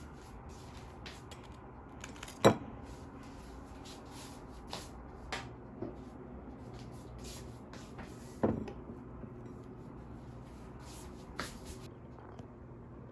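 Scattered knocks and clicks of household things being handled in a small room, over a steady low hum. The sharpest knock comes about two and a half seconds in, with another about eight and a half seconds in and a few softer clicks between.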